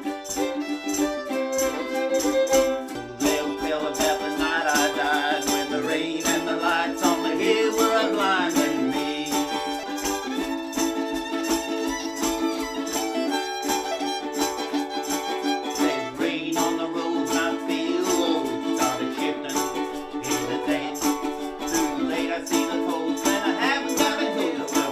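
Instrumental break in an old-time country tune: a fiddle plays the melody over two ukuleles strumming a steady rhythm.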